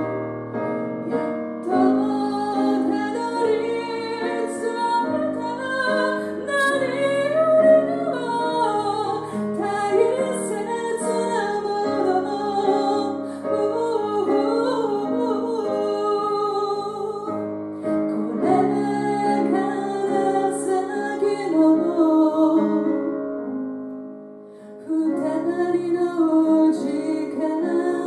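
A woman singing live with piano accompaniment. The music dips to a brief lull a little before the end and then comes back in.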